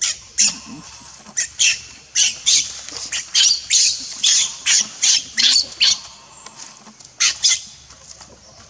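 Baby macaque screaming in distress, a rapid series of short, high-pitched shrieks about two a second, as an adult macaque grabs and pulls it. The calls break off about six seconds in, then two more follow.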